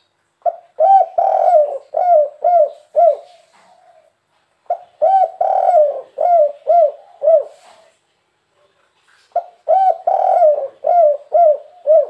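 Spotted dove cooing its 'kuk 3' song three times: each phrase is a longer, rolling coo followed by several short, clipped coos, with pauses of about a second and a half between phrases.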